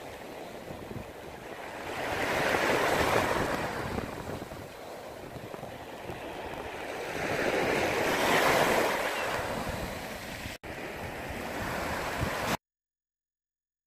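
Ocean surf: waves washing in, rising and falling in two swells, with a momentary dropout about ten seconds in and an abrupt cutoff near the end.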